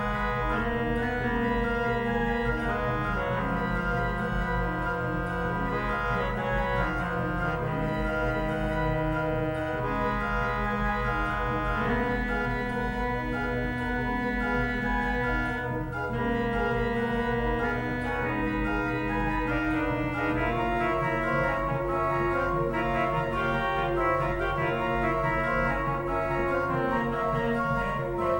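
57-rank Noack pipe organ playing at a steady, full level: held chords that change every second or two over a fast pulsing bass.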